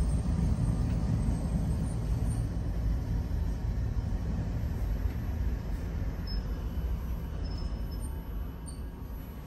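Nagasaki Electric Tramway streetcar running on street track, a steady low rumble of wheels and motor heard from inside the driver's cab, growing gradually quieter toward the end.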